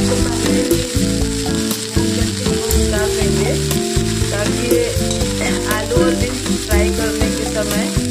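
Broccoli florets sizzling in hot oil in a metal kadhai, stirred with a slotted metal spatula that scrapes and knocks against the pan.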